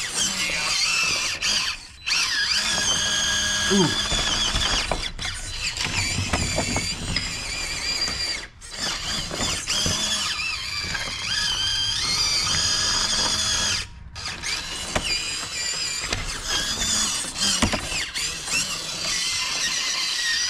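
Drivetrain of a 1/18-scale FMS FCX18 K10 RC crawler truck, its small electric motor and gears whining high and wavering in pitch as it crawls up a steep rock face. The whine stops briefly three times as the throttle is let off and picked up again.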